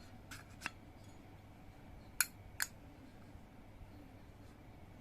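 Metal clicks from handling a Zippo lighter's brass case: a few light clicks, then two loud sharp clicks about half a second apart a little over two seconds in.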